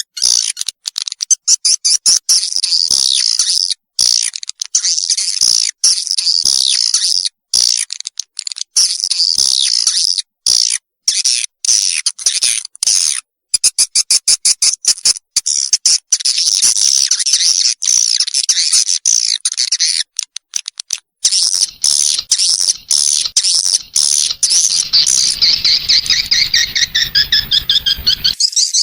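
Swiftlet lure call recording (suara walet): rapid, high twittering chirps in a dense, choppy stream with many brief gaps, played to attract young swiftlets into a swiftlet house.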